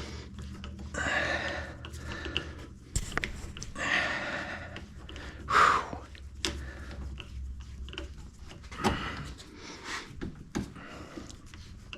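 Scattered clicks and knocks from a hand rod bender being worked on a 5/16-inch steel rod that is too thick for it, as an overbent rod is bent back, with several short heavy breaths in between.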